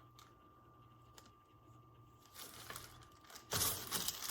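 Spent brass cartridge cases being handled: faint light clicks at first, then a louder rustling clatter starting about three and a half seconds in.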